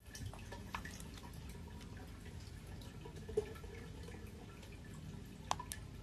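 Aquarium aeration and filter: bubbles popping and water dripping and trickling in irregular small ticks over a steady low hum, with two sharper clicks about three and a half and five and a half seconds in.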